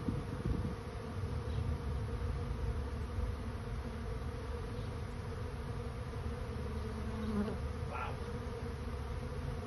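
A honey bee swarm in flight: thousands of bees make a dense, steady buzzing hum as the swarm moves into a new home. A low rumble fades out in the first second.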